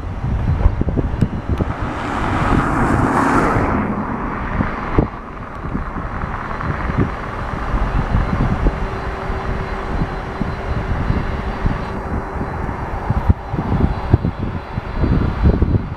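Airbus A320-233's IAE V2500 jet engines during the landing roll-out just after touchdown: a loud swell lasting about two seconds, starting about two seconds in, then a steady rumble as the airliner slows down the runway.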